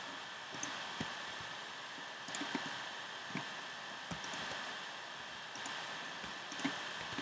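Irregular clicks from computer keys and mouse buttons, about a dozen spread unevenly, over a steady hiss with a faint high whine.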